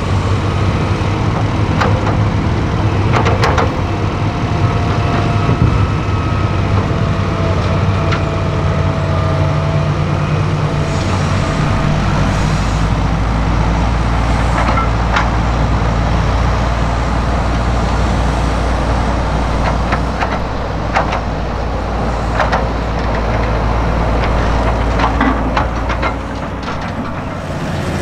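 Heavy diesel machinery running steadily: a Hitachi Zaxis 350 excavator and a Fendt tractor's engines as soil is loaded into the tractor's trailer, with occasional knocks. About eleven seconds in, the sound shifts to a deeper steady rumble of a Fendt 820 tractor's engine.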